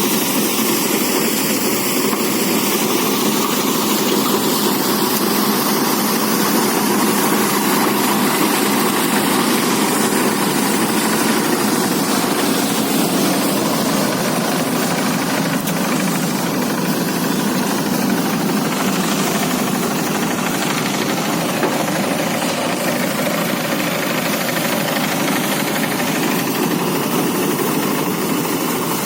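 Engine-driven rice threshing machine running steadily, a loud, even mechanical noise with no break or change.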